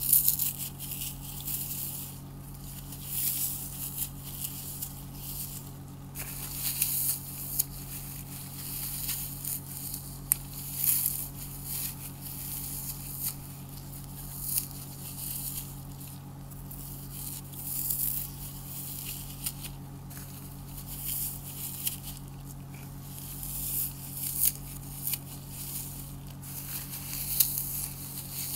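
Dry floral foam crushed and crumbled under gloved fingers, giving irregular bursts of crisp crunching and crackling, several per few seconds.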